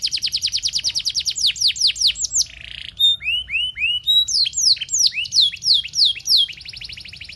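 Canary singing a long, fast song: rapid rolls of high, downward-sweeping whistled notes, a short raspy note about two and a half seconds in, then a run of rising notes followed by more quick trills.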